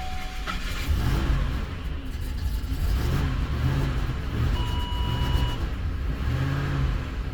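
Ford 5.4L Triton V8 running just after a hard cold start, its revs rising and falling unevenly as the throttle is worked to keep it from stalling. This is typical of its cold-start stalling problem. A steady electronic beep sounds for about a second past the middle.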